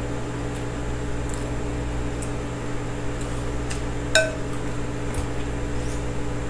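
A steady electrical hum with a few light clinks of cups and dishes at a snack table; the sharpest clink, about four seconds in, rings briefly.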